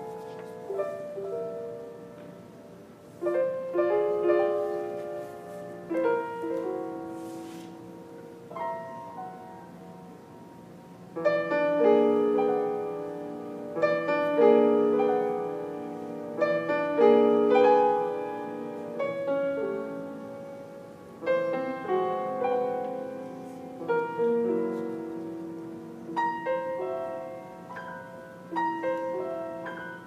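Solo piano playing a slow classical piece. Phrases of single notes and chords are struck and left to ring out, and they grow louder after about eleven seconds.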